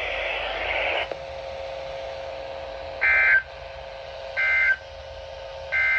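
Three short warbling two-tone digital data bursts from a NOAA Weather Radio broadcast, about a second and a half apart: the SAME end-of-message codes that close the weekly test. Before them comes about a second of radio static, and a faint steady hum runs underneath.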